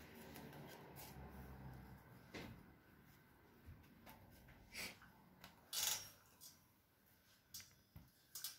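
Faint handling noises of stiffened sinamay fabric and a clothes iron on a wooden hat mould: a few short, separate rustles and light knocks, the loudest a brief hiss-like rustle a little past the middle.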